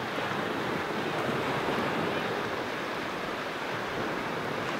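Small waves breaking and washing up a sandy beach: a steady hiss of surf, with some wind on the microphone.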